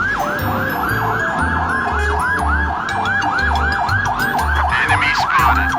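Fire-truck siren in fast yelp mode, its pitch sweeping up and down about four times a second without a break, with a low thumping beat underneath.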